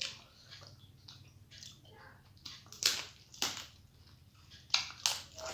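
Close-up chewing and crunching of food, with a handful of sharp crunches, the loudest about three and about five seconds in.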